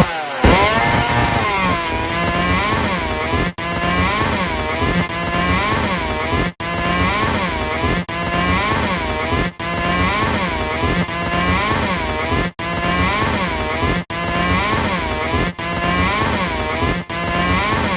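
Two-stroke chainsaw engine running at high revs, its pitch dipping and rising again and again. Short breaks come roughly every one and a half seconds.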